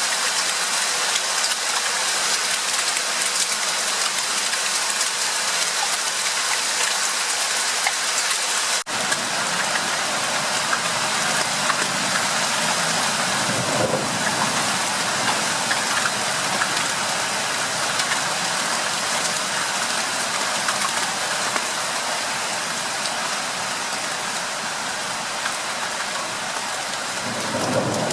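Steady heavy rain falling, a dense even hiss. About nine seconds in the sound breaks off for an instant, and after that low rumbles swell up twice beneath the rain.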